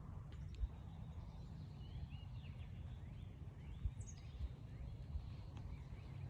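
A few faint bird chirps, clustered about two to three and a half seconds in, over a steady low outdoor rumble.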